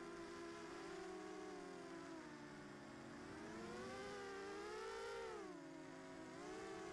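Racing quadcopter's brushless motors whining as heard from its onboard camera, several tones rising and falling together with the throttle, highest about five seconds in before dropping back.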